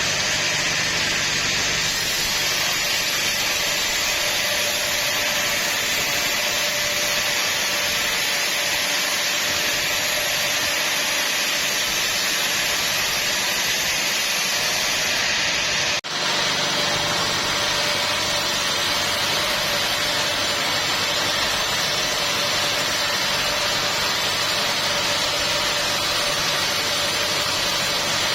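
Sawmill machinery running steadily, a loud, even hiss-like noise with a faint steady hum under it. It cuts out for an instant about sixteen seconds in.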